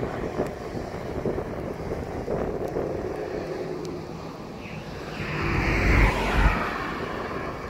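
Wind buffeting the microphone. A deeper rumble swells about five seconds in, peaks about a second later and then fades.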